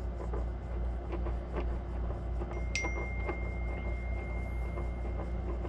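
Gloved hands scrubbing and handling the plastic hub of a PICC line, giving faint rubbing and small clicks over a steady low hum. About three seconds in, a sharp click sets off a thin, steady high ringing tone that lasts about two and a half seconds.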